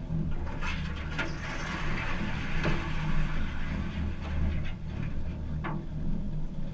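Small boat's motor running steadily at a low hum while under way, with a few sharp knocks and a brief rushing noise over it.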